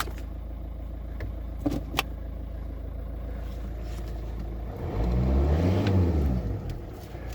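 VW 1.9 TDI diesel engine idling steadily, with a few light clicks early on; about five seconds in the engine is revved briefly, rising and falling back to idle within about a second and a half.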